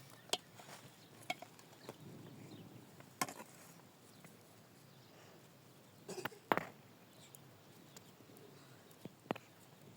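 A few scattered sharp knocks and clicks, about half a dozen spread irregularly over ten seconds, with a faint background between them.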